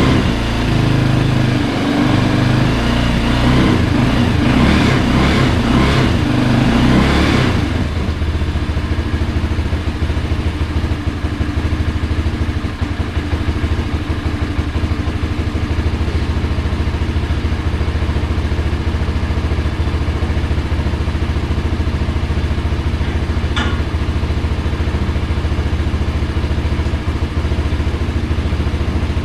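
Kayo Bull 150 ATV engine running faster and unevenly for about the first seven seconds, then dropping to a steady idle. One brief click is heard near the end.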